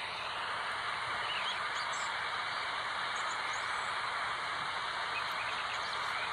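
Steady outdoor background hiss, with faint, brief bird chirps scattered through it.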